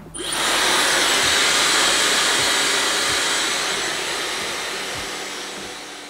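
Dyson Supersonic hair dryer blowing at its highest fan and heat setting: a loud, steady rush of air that starts abruptly and slowly fades over the second half.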